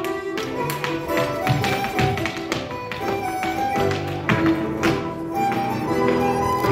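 Live accordion playing a brisk Irish dance tune, with the rapid clicks and stamps of Irish dancers' hard shoes beating on the stage floor.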